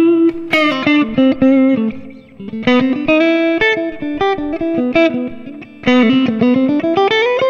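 Strat-style electric guitar played through a Valeton GP-100 multi-effects processor on a clean preset: single-note melodic phrases with short pauses, ending in a rising run.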